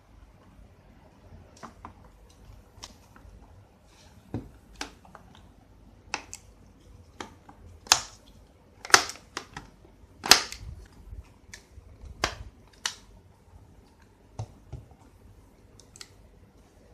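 Hard plastic and metal clicks and snaps from handling the parts of an HP Mini 210 netbook during hard drive work. They come irregularly, with the loudest snaps in a cluster in the middle.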